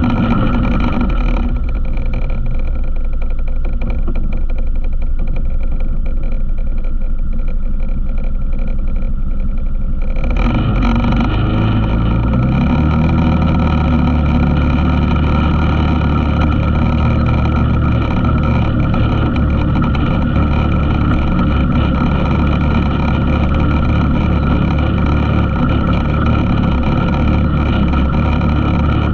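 ATV engine running under way on a trail ride; about ten seconds in the throttle opens, the engine note rises and then holds steady at a higher speed.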